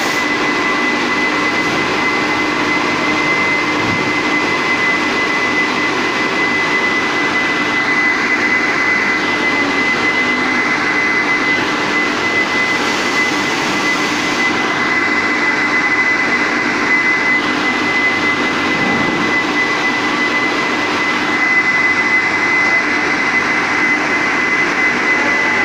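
Thermoforming machine running: a steady mechanical noise with a high steady whine that settles just as it begins, and a higher hiss that comes and goes several times.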